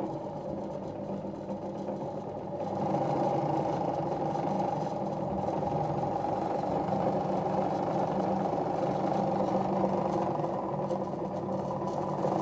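Jones sewing machine running under its electric motor, driving the bobbin winder pressed against the wheel as thread winds onto the bobbin: a steady hum that gets louder about two and a half seconds in and then holds.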